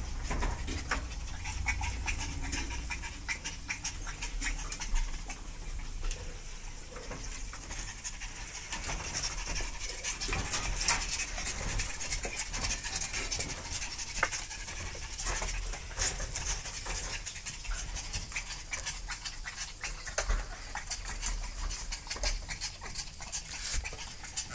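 Chihuahua puppies panting, with irregular small clicks and scuffles throughout.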